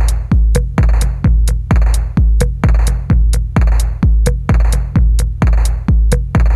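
Electronic background music: a heavy kick drum on a steady beat of about two a second, with crisp hi-hat ticks over it.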